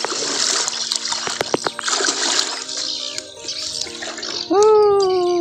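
Muddy rice-paddy water splashing and sloshing as a person wades through it carrying a dripping plastic crate, for the first few seconds. Faint steady background tones run underneath. Near the end a loud held note cuts in, sliding slightly down.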